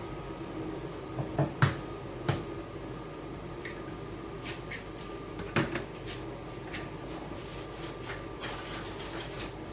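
Light knocks and clicks of kitchen utensils against a bowl while an egg is cracked and beaten: scattered single clicks, a few louder ones early on, then a quick run of small taps near the end, over a steady hum.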